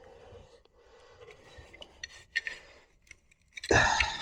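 Faint handling of a uPVC door lock gearbox, then near the end a short, loud hiss of aerosol cleaner sprayed into the gunked-up mechanism to free it.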